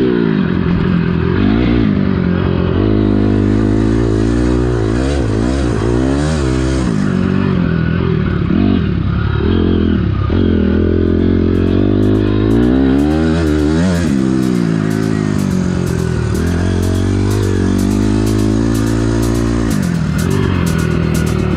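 2006 Honda CRF250R's single-cylinder four-stroke engine, recorded on board while riding a motocross track, revving up and falling back again and again as the rider accelerates, shifts and rolls off for the turns. A fast, light clatter joins in during the second half.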